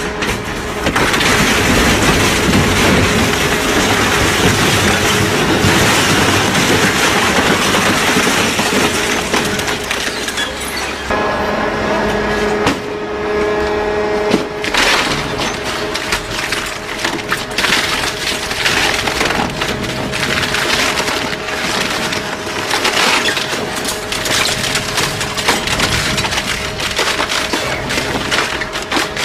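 Twin-shaft industrial shredder tearing apart household appliances: a steady machine hum under continuous crunching and cracking of sheet metal and plastic. About 11 s in the hum changes pitch, and in the second half sharp snaps come thick and fast.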